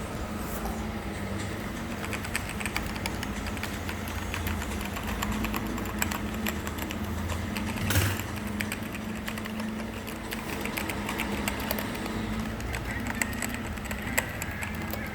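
Typing on an Azio MK-MAC-U01 mechanical keyboard: a quick, uneven run of key clicks over a steady low hum, with one louder knock about halfway through.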